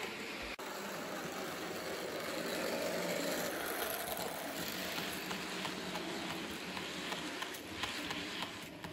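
Model freight train rolling along the track: a steady rumble of the wagons' wheels on the rails, with light clicking over the rail joints that grows more frequent toward the end.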